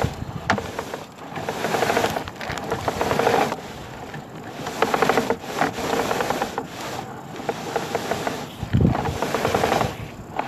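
Sewer inspection camera and its push cable scraping and rasping in repeated uneven bursts as they are fed along a drain pipe. There is a dull thump near the end.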